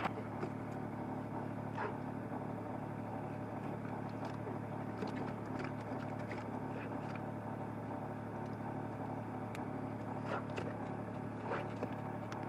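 Boat engine running steadily with an even low hum, with a few faint knocks.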